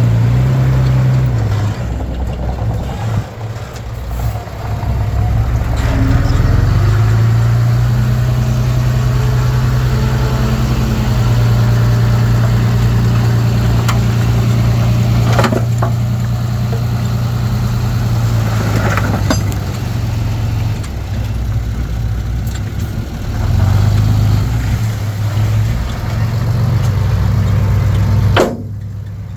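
Komatsu D31P bulldozer's diesel engine running under changing load, its pitch stepping up and down several times, with two sharp knocks midway.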